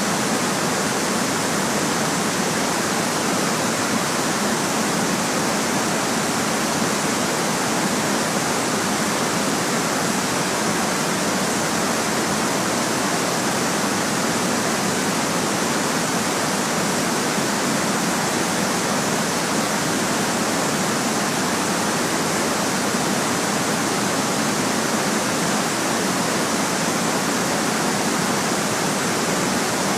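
Steady white noise: an even, unchanging hiss with little bass.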